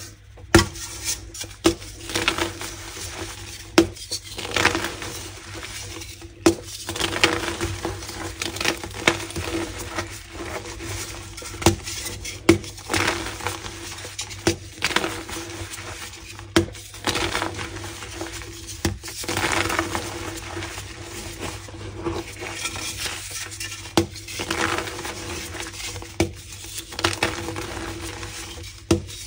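Pink gym chalk crunching and crumbling close to the microphone: irregular sharp cracks, sometimes several in quick succession, with gritty crumbling between them.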